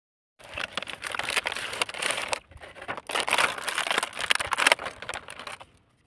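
Clear plastic packaging and a cardboard box being handled and opened, crinkling and crackling in two spells with a short pause about two and a half seconds in. It dies away near the end.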